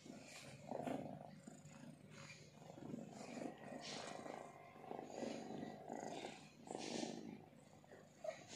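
Cat purring in faint, uneven swells about a second apart: the contented purr of a mother cat nursing her kittens.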